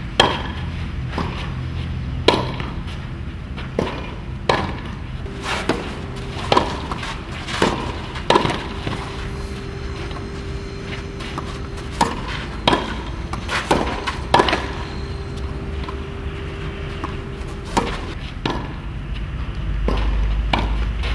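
Tennis rally: balls struck with rackets, sharp pops at irregular intervals about one to two seconds apart, with a couple of longer pauses between points.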